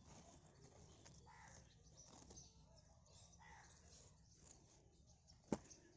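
Near silence: faint outdoor background, with one sharp click near the end.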